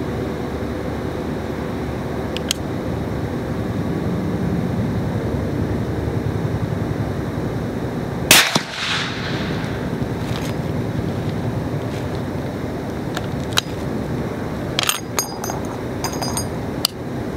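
A single shot from a Barrett M99 .50 BMG rifle fitted with a Mojave suppressor: one sharp report about eight seconds in, followed by a short fading echo. Near the end come several sharp metallic clicks and clinks as the rifle's action is handled.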